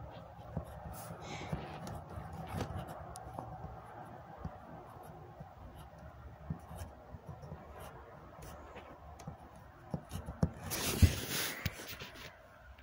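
Handling noise: cloth rubbing and scraping over a phone's microphone, with scattered small clicks and a louder rustle about eleven seconds in.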